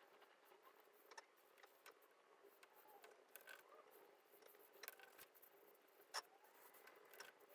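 Faint pencil strokes scratching on drawing paper as curved lines are drawn, with scattered light ticks; the sharpest tick comes about six seconds in.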